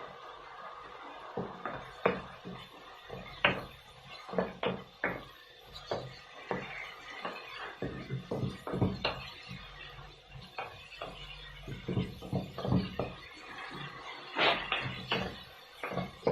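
Spatula stir-frying crayfish in a wok: irregular clacks and scrapes of the spatula and the crayfish shells against the pan.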